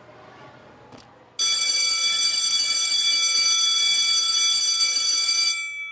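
An electric school bell ringing loudly and steadily for about four seconds, starting abruptly and dying away near the end.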